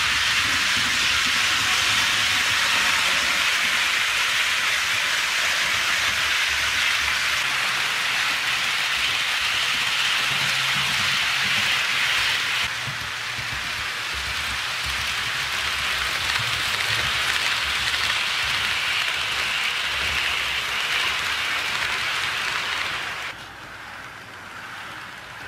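HO scale model freight train running on its track: a steady, hiss-like rolling of metal wheels on rail. The level drops abruptly about halfway through and again more sharply near the end.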